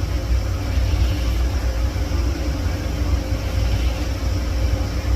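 Steady low rumble with a faint constant hum, the workshop's background noise; no distinct tool strikes or clicks stand out.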